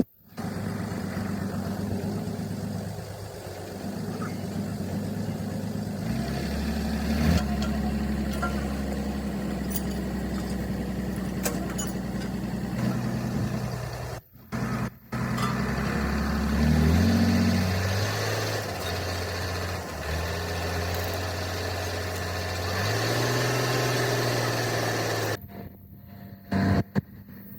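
Heavy machinery running with a steady low hum that shifts to a new pitch several times, broken by a few abrupt cuts.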